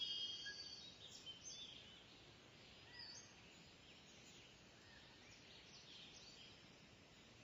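Near silence with faint bird chirps and short whistled calls over a low background hiss, the clearest just at the start.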